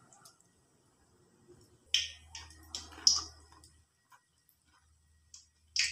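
A short run of sharp clicks and crackles about two to three seconds in, and another near the end, from a prawn fritter frying in a wok of hot oil as a chopstick prods it.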